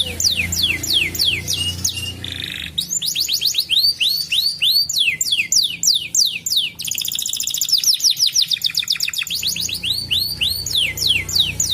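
Domestic canary singing a long song of rapid rolls. Runs of quickly repeated falling notes give way to a short buzzy note, then arched notes, then a very fast trill about seven seconds in, and arched notes again near the end.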